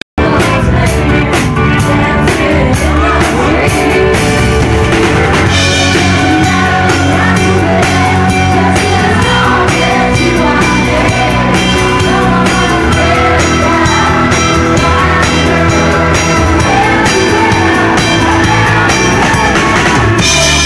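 Live band playing loud music, a drum kit keeping a steady beat under singers' voices.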